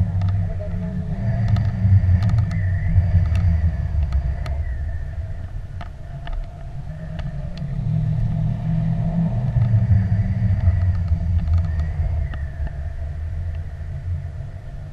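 Wind buffeting the action camera's microphone on a tandem paraglider in flight: a low rumble that swells and eases, with a few faint clicks.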